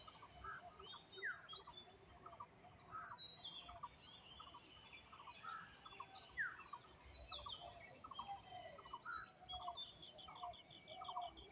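Faint mixed chorus of village birds in the early morning, many short chirps and whistled calls overlapping, with a fast trill of repeated notes near the end.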